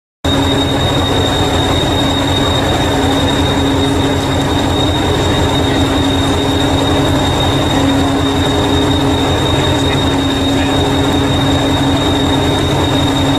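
Diesel engine of a green heritage diesel multiple unit, unit 1001, idling while it stands at the platform: a steady low throb with a constant high-pitched whine over it.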